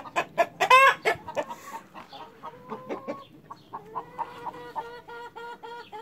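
A flock of brown laying hens clucking, with one loud squawk about a second in, then scattered clucks that become a quick, even run of about five clucks a second near the end.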